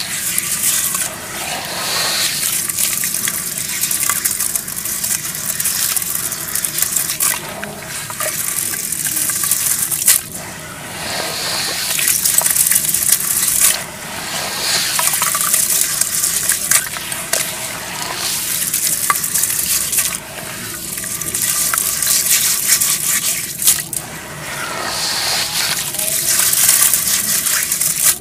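Hands squeezing and kneading wet brown dirt in a basin of muddy water: gritty squelching and sloshing, in surges a few seconds apart as handfuls are pressed down and stirred.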